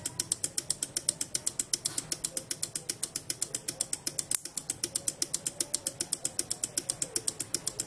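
Three small relays in a transistor-free chaser circuit clicking in turn as they switch the lights, a rapid, even train of clicks at roughly nine a second.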